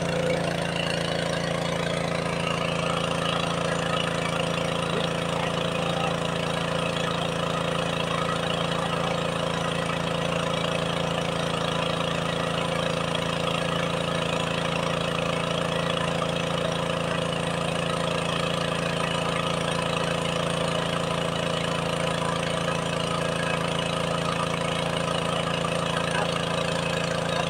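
Engine of a water pump running steadily at one constant speed, pumping water out of a pond.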